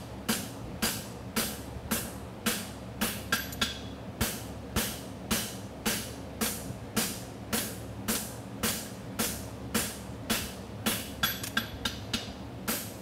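Hammer blows on a red-hot steel horseshoe bar lying on an anvil, flattening it: a steady run of ringing strikes, about two a second.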